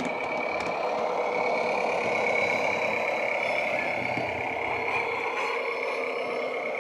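Heljan railbus model's LokSound 5 sound decoder playing a diesel railbus engine running, through the small speaker fitted in the model. It grows louder about two seconds in and eases off again toward the end.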